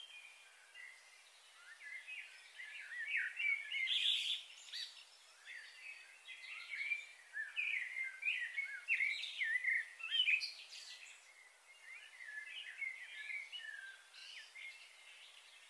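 Birds chirping and calling in quick, varied, pitch-sliding notes, thickest from about two seconds in until about eleven seconds in.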